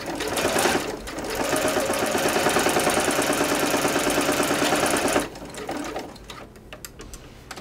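Janome electric sewing machine stitching bias tape onto a fabric edge with a bias tape binder foot: a short run, a brief pause, then a steady fast stitching run of about four seconds that stops about five seconds in.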